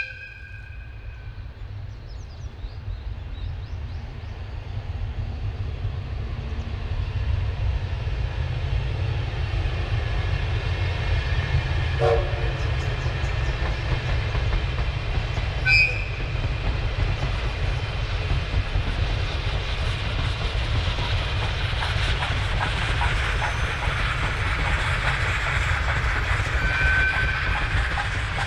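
A locomotive-hauled train of old passenger coaches approaching and running past, its rail noise building over the first twenty seconds with wheels clicking over the rail joints. Short whistle toots sound about halfway through and again near the end.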